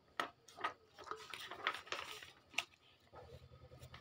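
A few faint, sharp clicks and light clatter, scattered through an otherwise quiet pause.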